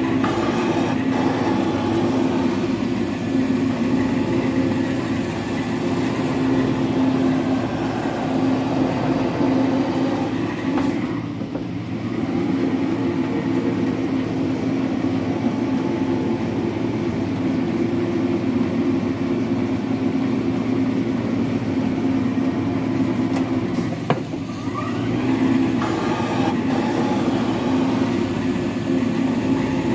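Metal planer running while it cuts the ways of a cast-iron lathe bed: a steady machine drone whose note sags briefly twice, about 11 seconds in and again about 24 seconds in, with a single click just before the second sag.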